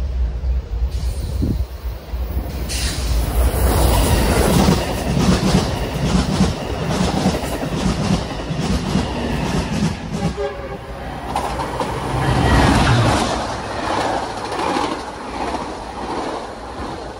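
Amtrak Pacific Surfliner passenger train passing close by, its bilevel cars' wheels clattering over the rail joints in a regular clack. The noise swells about two and a half seconds in and fades near the end.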